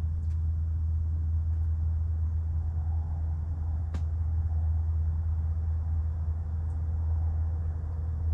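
A steady low rumble or hum, with a single sharp click about four seconds in.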